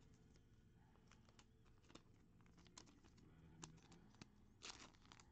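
Near silence with faint scattered clicks and ticks, and a brief rustle about three-quarters of the way in, from trading cards and plastic card holders being handled on a table.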